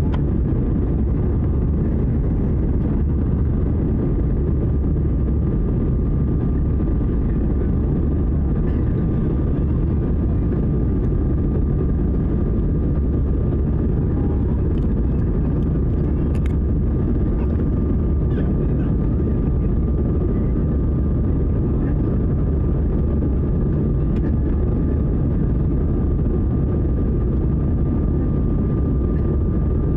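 Jet airliner cabin noise in flight: a steady low roar of engines and airflow, with a thin steady whine over it.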